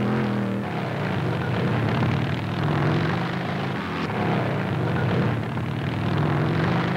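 Motorcycle engines running together in a steady drone, the pitch wavering up and down a little as they climb over rough ground.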